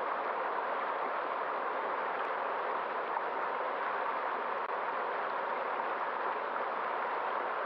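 Steady, unbroken rush of flowing stream water.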